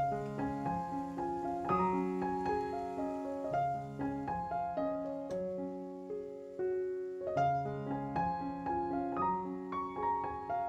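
Background piano music, a melody of individual notes that fade after each strike, with a brief lull a little before the middle.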